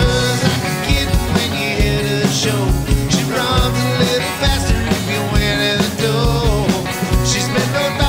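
A song: singing over a full band with a steady drum beat.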